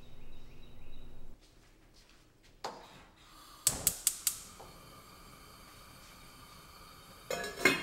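A gas range burner being lit: three sharp igniter clicks about four seconds in, then the steady hiss of the burning gas under the pot. A brief louder clatter comes near the end.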